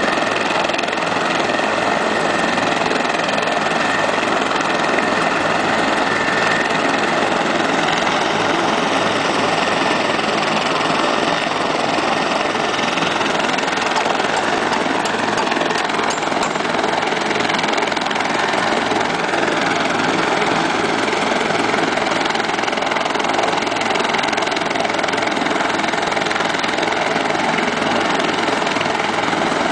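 Military utility helicopter running on the ground with its rotors turning: a steady rush of rotor and engine noise with a high turbine whine over it, holding at a constant level throughout.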